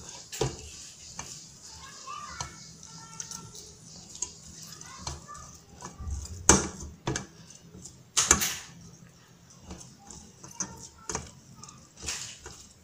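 Metal spoon scraping and knocking against a plastic sieve while pressing milk curds to squeeze out the whey, in scattered scrapes and clinks, the loudest about six and a half and eight seconds in.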